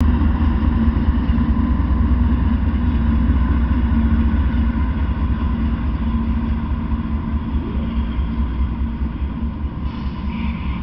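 Norfolk Southern diesel freight locomotives passing close by, their engines running with a steady, loud low rumble and a hum. Near the end the locomotives give way to autorack cars and the engine sound eases a little.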